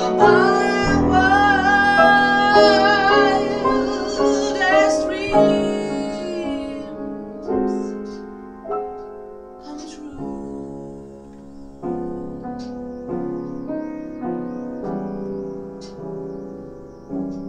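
A woman's singing voice with vibrato over piano chords, the voice ending about five seconds in. The piano then carries on alone, softer, with separate chords that ring and fade.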